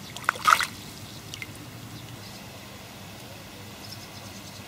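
A brief splash of water among reeds about half a second in, then a few faint drips.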